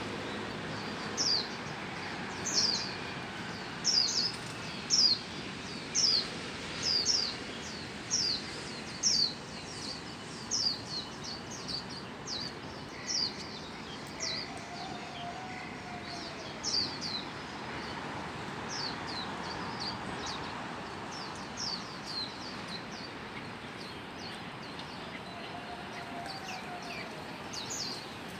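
Wild sikatan londo flycatcher calling: repeated short, high chirps that slur downward, often in pairs, one or two a second, thinning out in the second half over steady background hiss.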